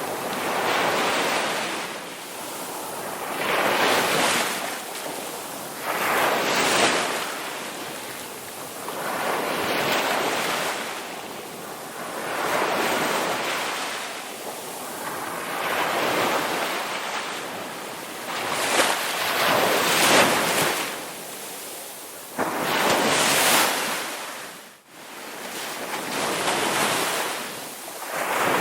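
Sea waves breaking and washing on a beach, the surf swelling and fading about every three seconds. The sound briefly drops out about three-quarters of the way through.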